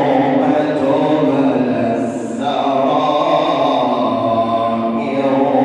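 Male reciter chanting the Quran in a slow, melodic recitation, holding long sustained notes, with a brief dip about two seconds in before the line resumes.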